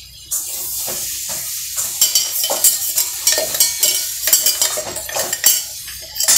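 A spoon stirring and scraping inside a stainless-steel mixer-grinder jar, with quick metallic clinks against the steel over a steady sizzling hiss that starts suddenly just after the beginning.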